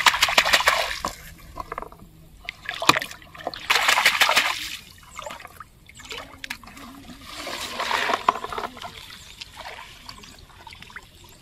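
Hands splashing hard in shallow pond water, a rapid run of splashes in the first second, then a few shorter splashes and sloshes about four and eight seconds in.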